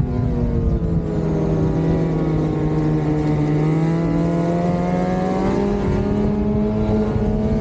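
Lynx Shredder RE 850 Turbo snowmobile's turbocharged two-stroke twin running on the trail through a Jaws trail muffler. Engine speed eases down over the first few seconds, then picks up again.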